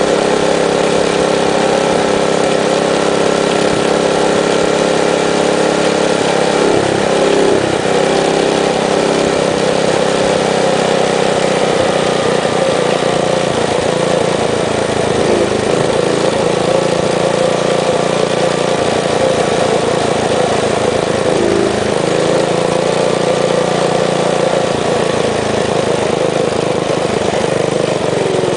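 A minibike's small engine running steadily under way, with brief dips in pitch a few times and a falling pitch near the end as it slows.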